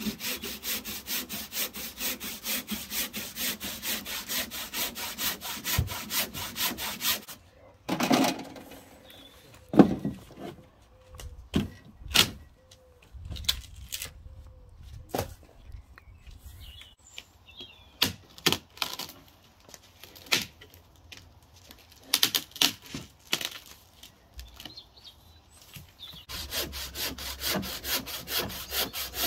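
Hand saw cutting through a dry wooden branch in quick, even strokes. This stops after about seven seconds and gives way to scattered sharp cracks and knocks of the sticks being broken and handled. Near the end the sawing starts again.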